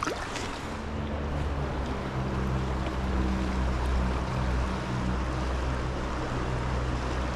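Steady rush of a high-running trout stream, with wind rumbling on the microphone and a faint low hum underneath.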